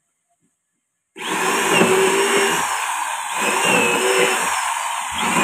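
Corded electric drill boring into a sissoo (Indian rosewood) door stile. It starts about a second in and runs steadily, with a few short dips in its run.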